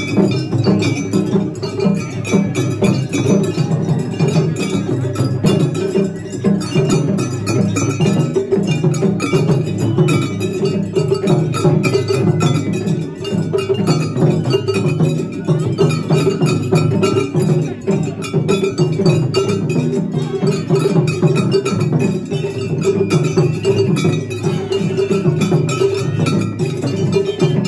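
Japanese festival-float hayashi music played live: drums beating a fast, unbroken rhythm with a small hand gong clanging along.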